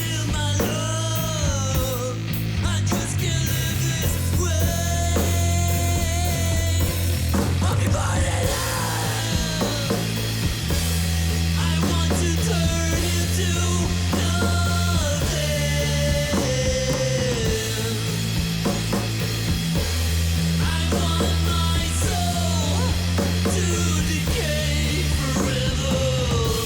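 Stoner rock from a three-piece band: held low bass notes that change every few seconds under a lead melody that bends and slides in pitch.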